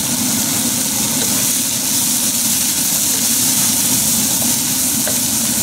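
Diced scallions, bell peppers and celery sizzling steadily in hot oil in a wok, stirred with a wooden spatula, over a steady low hum.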